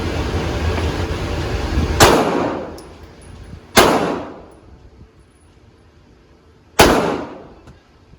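Three single gunshots, spaced unevenly about two to three seconds apart, each followed by an echoing decay. Before the first shot there is a steady rushing noise.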